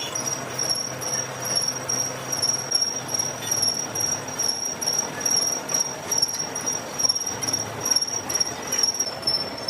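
Machine tool cutting metal: a dense grinding rattle under a steady high whine, with a faint pulse about twice a second.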